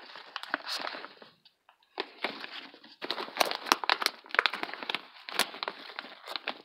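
Crinkly rustling close to the microphone, in irregular bursts with a short pause about a second and a half in.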